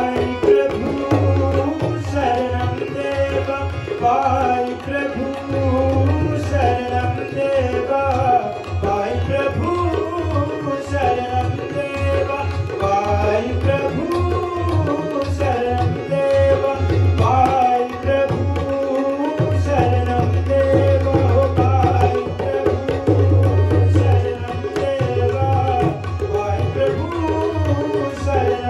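Tabla and harmonium accompanying a man singing a devotional bhajan, the tabla playing a busy rhythm with deep bass strokes.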